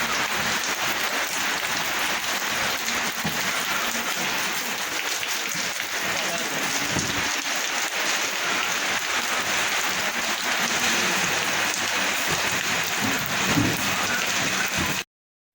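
Heavy rain falling in a steady, dense hiss, which cuts off suddenly near the end.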